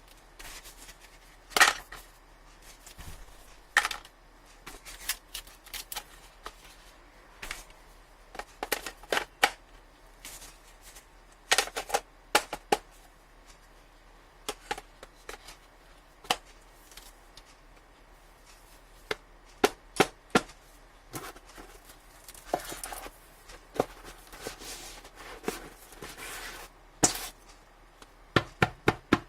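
Irregular taps, clicks and knocks of a smartphone, its box and accessories being handled on a hard surface, some in quick clusters, with soft rustling of packaging about two-thirds of the way in. A faint low hum runs underneath.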